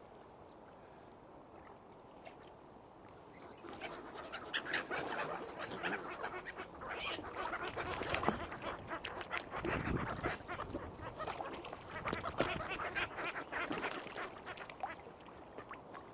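A flock of waterfowl calling: quiet at first, then from about four seconds in a dense run of many overlapping short calls that eases off near the end.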